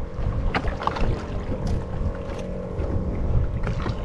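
Wind buffeting the microphone on a small open boat at sea, a steady low rumble, with a few light knocks about a second apart.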